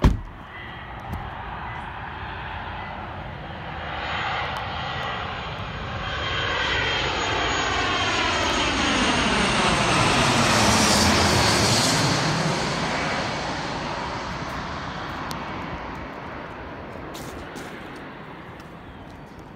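Twin-engine business jet on landing approach passing low overhead. Its jet noise swells to a peak about ten seconds in, with a sweeping rush and a high whine at the closest point, then fades away. A sharp click at the very start.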